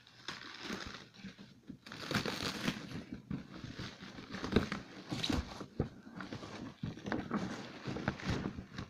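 Plastic bubble wrap crinkling and rustling as it is pulled off and unwrapped from an item, with irregular crackles and small clicks throughout.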